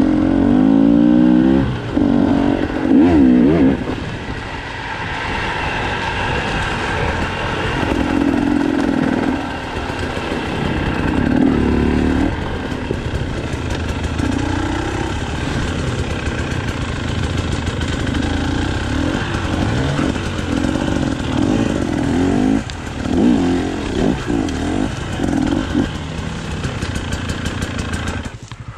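Enduro motorcycle engine being ridden off-road, revving up in repeated surges and dropping back between them.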